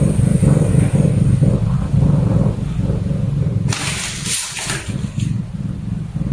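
Chinese Li Hua tabby cat purring loudly, right up against the microphone. About four seconds in, the purr briefly gives way to a second-long rustling hiss, then resumes.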